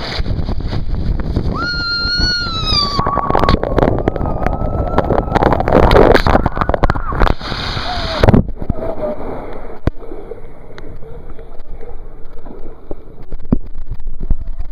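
Rushing, splashing water from a water-slide ride, with a long held scream over it for several seconds. About eight seconds in there is a sudden loud splash, then quieter sloshing water.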